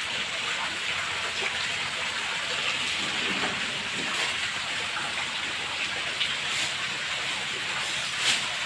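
Water pouring from an inlet pipe and splashing into a crowded koi tank: a steady, even splashing hiss, with one brief sharp click near the end.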